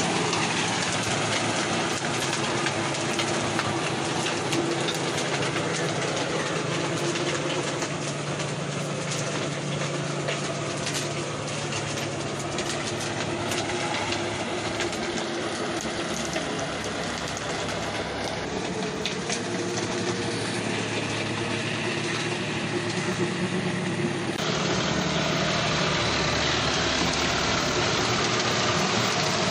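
John Deere tractor's diesel engine running steadily under load while its rear-mounted rotavator churns wet, muddy soil, with a dense rattle of clicks mixed into the engine noise.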